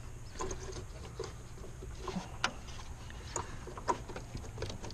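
Scattered light clicks and taps of a hand working among plastic parts and wiring in a pickup's engine bay, reaching behind the headlight housing.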